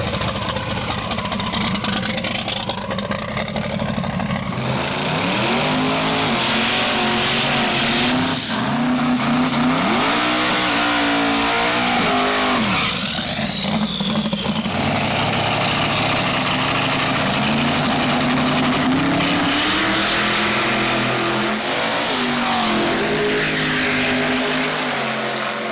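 Twin-turbo big-block Chevy V8 of a drag-racing 1930 Plymouth sedan running loud, its pitch climbing and dropping several times as it is revved and run down the strip. High whistling glides rise and fall over the engine a couple of times.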